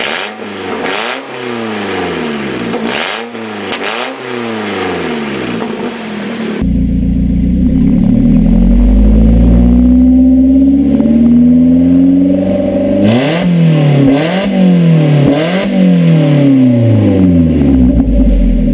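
A 1999 Mazda Miata NB's 1.8-litre four-cylinder engine revved repeatedly through an open exhaust with the catalytic converter, resonator and muffler removed. About three quick blips come first; then, about six seconds in, the sound turns louder with one long slow rise and fall, followed by a run of quick revs.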